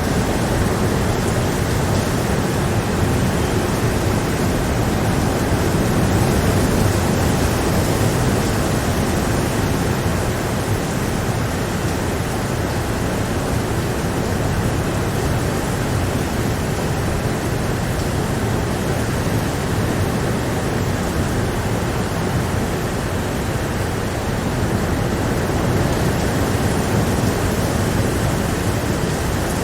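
Rain falling steadily, an even rushing hiss that holds at one level without breaks.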